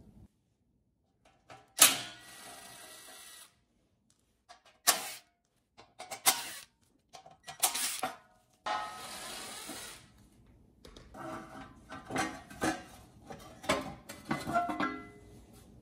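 Cordless Ryobi driver spinning out bolts on a generator frame in short runs, with silent gaps between them. It is followed by a stretch of clinks and clatter as metal parts and a cover are handled.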